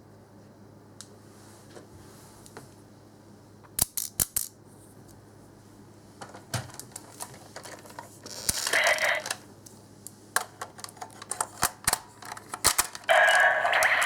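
Plastic clicks and snaps of a Kyoryuger Jyudenchi toy battery being handled and loaded, with two short bursts of electronic toy sound from a small speaker, one a little past the middle and one near the end.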